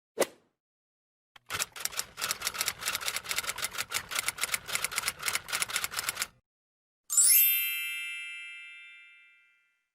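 Mechanical typewriter keys clattering rapidly for about five seconds, then a single bright bell ding that rings and fades over about two and a half seconds. A lone short click comes just before the typing.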